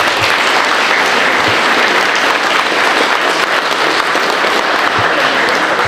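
Audience applauding steadily, a crowd of many hands clapping together.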